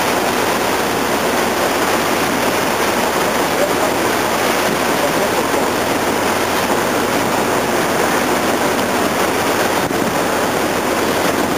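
Steady rush of river water along the hull of a moving tour boat.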